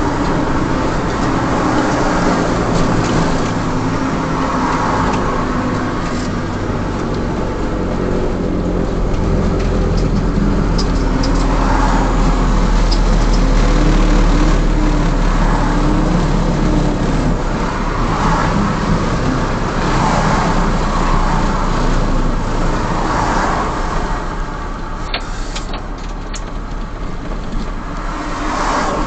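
Semi truck's diesel engine and road noise heard inside the cab while cruising at highway speed: a steady low drone whose engine note rises and falls slightly.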